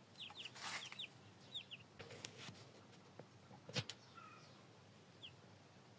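Chicks peeping quietly: a cluster of short, high, falling chirps in the first second, then a few scattered ones. Two sharp knocks come in between, about two and four seconds in.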